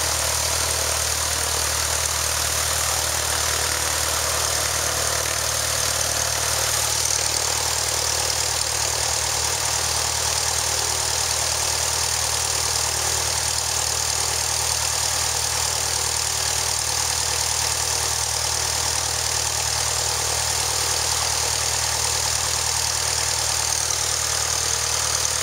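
Propeller aircraft's engine idling steadily on its first run after an engine overhaul.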